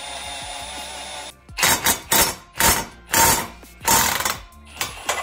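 A Milwaukee cordless power tool runs steadily on a bolt in a Toyota 2JZ-GTE cylinder head and stops after about a second and a half. Then a cordless impact tool hammers on a bolt at the end of the head in about seven short, loud bursts, roughly two a second.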